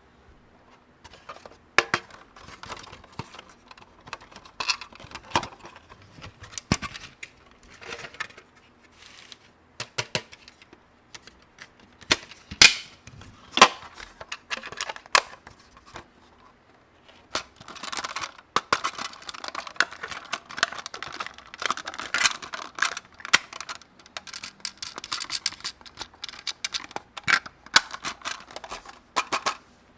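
Hands handling small plastic toy pieces: irregular sharp clicks and taps, with a longer run of rustling and crinkling a little past halfway.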